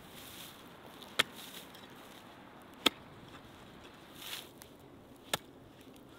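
Hand-forged iron soeseurang (Korean digging fork) striking into hard, dry soil: three sharp strikes a second or two apart, with a softer rustle of broken earth about four seconds in.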